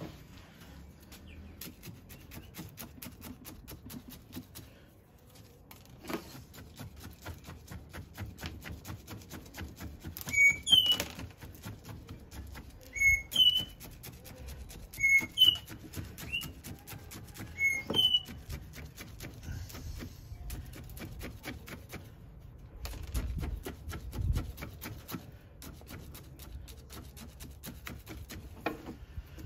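Gritty granules of bonsai substrate clicking and crunching as a wooden chopstick works them in around the roots in a basket pot. In the middle a bird calls about five times, short chirps that step up in pitch, louder than the clicking.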